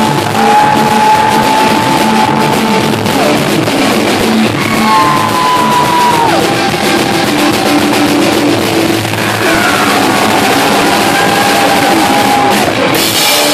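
Live rock band playing loud on electric guitar and drum kit, with long held notes, three of them, each a few seconds long and sliding down in pitch as it ends.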